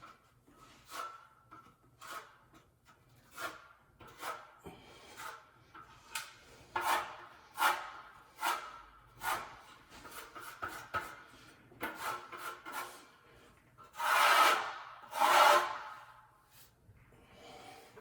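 Repeated rubbing or scraping strokes, roughly one or two a second, with two louder, longer strokes near the end, as someone works a surface by hand.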